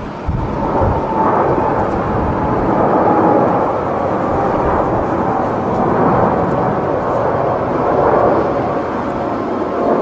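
Boeing 747-8's four GEnx turbofan engines at takeoff thrust: a loud, steady jet roar through the takeoff roll and lift-off, with a faint whine in it.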